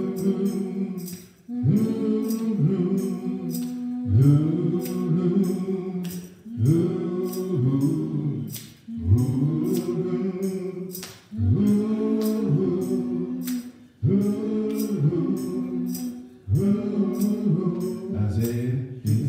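Male voices singing a gospel song through church microphones, the same phrase coming round about every two and a half seconds over a steady beat of sharp percussive hits, like a tambourine.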